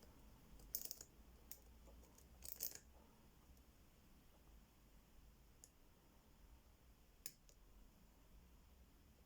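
Faint, scattered clicks of a lock pick and tension wrench working the pin stack of an ABUS 85/60 padlock during single-pin picking, with a small cluster of clicks about two and a half seconds in.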